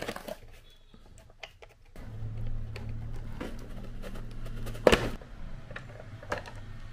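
Hands handling cardboard toy packaging and a box cutter: scattered light taps, scrapes and clicks, with one sharper knock about five seconds in.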